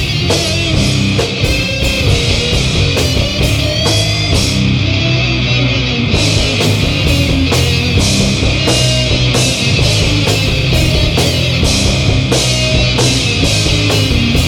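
Stoner metal band playing live: distorted electric guitar and bass riff over a drum kit. The cymbals drop out for about a second and a half near the middle, then come back in.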